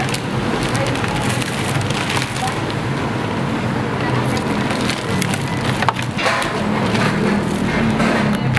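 Stall work sounds: many short knocks and clicks, as of utensils and wooden or hard surfaces being handled, over a steady background noise and hum.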